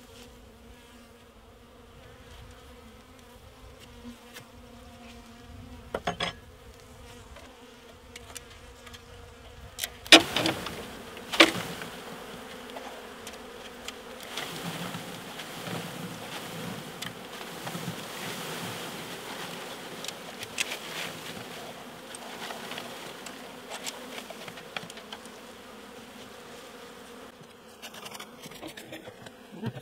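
A mass of honey bees buzzing around an open horizontal hive as frames of bees are moved in. Two sharp knocks about ten seconds in, after which the buzzing grows louder and fuller.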